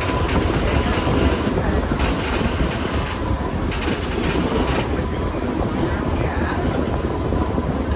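Streetcar running along its rails, heard from inside the car: a steady rumble of wheels on track with a faint, steady high tone.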